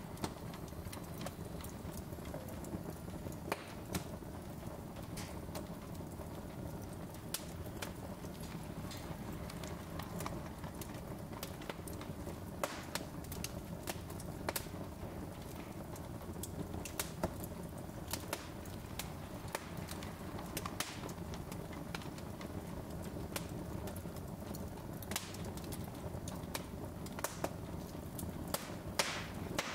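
Wood logs burning in an open fireplace: irregular sharp crackles and pops over a steady low sound of the flames.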